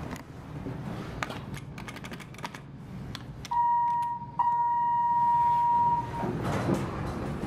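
Elevator car's push-button panel: a few light clicks, then a steady electronic beep sounds as the floor button is pressed, a short beep followed by a longer one of nearly two seconds. After the beep a rumbling mechanical noise sets in as the doors start to close.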